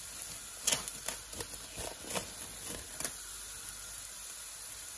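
Plastic cling film crackling as it is handled on a glass bowl: several sharp crackles and clicks in the first three seconds, over a faint steady sizzle of onions and curry powder frying in oil.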